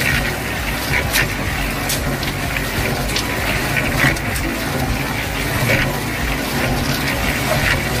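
Thick mud slurry pouring from a tipped miniature mixer drum into a small plastic container, over a steady low rumble.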